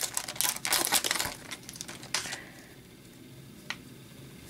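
Hockey card pack's wrapper being torn open and crinkled for about the first two seconds, then quieter handling with a single faint click.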